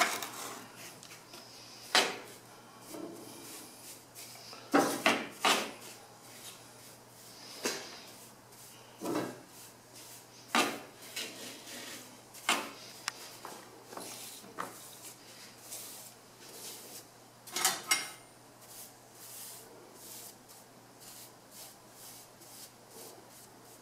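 Paintbrush sweeping soot and ash out of a wood stove's combustion-chamber opening into a plastic dustpan: soft brushing and scraping, broken by scattered sharp knocks and taps.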